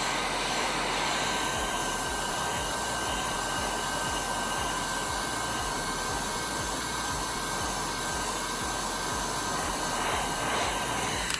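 Electric heat gun blowing steadily, heating cured resin drips to soften them for peeling. It switches off abruptly at the very end.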